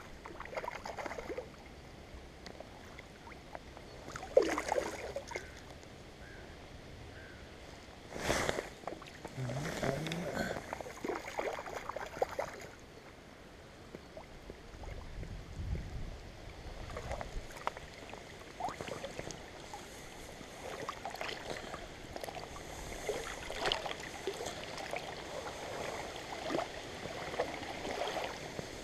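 Moving water with scattered knocks and rustles, a few of them louder about four, eight and ten seconds in.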